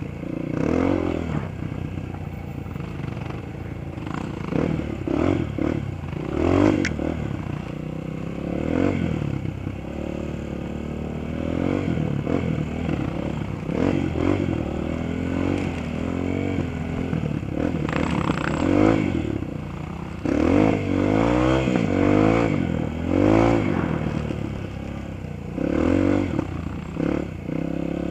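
Dirt bike engine heard from on board while riding, revving up and down again and again with the throttle, with a few sharp knocks from the bike over rough ground.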